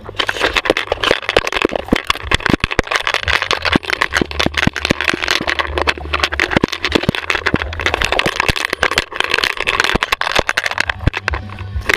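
Handling noise from a GoPro strapped to a dog that is running and tumbling: a dense, continuous clatter of knocks and clicks as the camera mount jolts and rubs, over a steady rushing noise.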